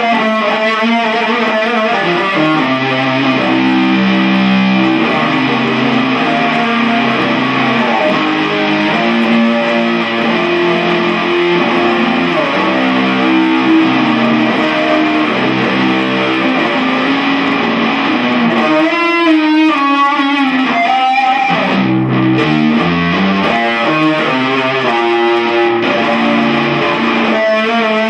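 Electric guitar music with distortion, notes and chords changing throughout, recorded loud on a Samsung Galaxy S III phone's microphone.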